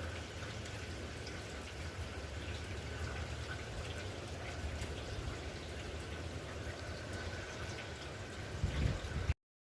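Steady rain falling, with many faint scattered ticks and a low rumble that swells briefly near the end. The sound cuts off suddenly about nine seconds in.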